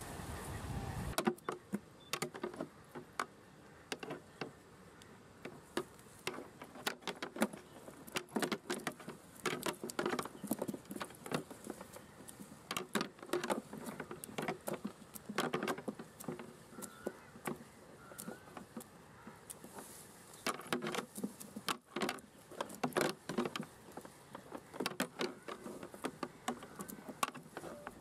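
Cast net being shaken out over a plastic crate to free the caught prawns: an irregular clatter of small clicks, taps and rattles on the plastic, starting about a second in and going on with short pauses.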